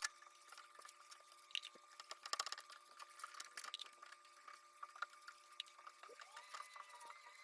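Faint scattered clicks and light taps over a faint steady hum, with a brief gliding tone near the end.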